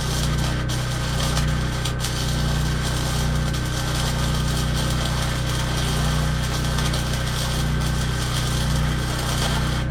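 Power tool running steadily with no break: a continuous low hum under an even hiss.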